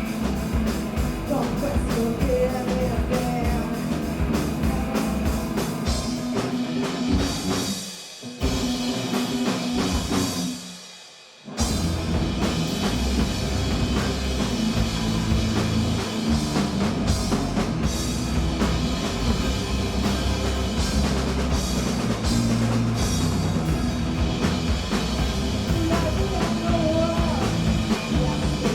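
A punk rock band playing live, with drums, guitars and singing. The band drops out briefly about eight seconds in, then stops almost completely for about a second before crashing back in at full level.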